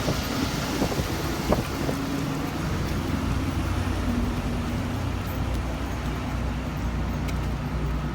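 Downtown street traffic: vehicle engines running with a steady low hum, over a constant low rumble of wind on the microphone. A few sharp clicks sound in the first second and a half.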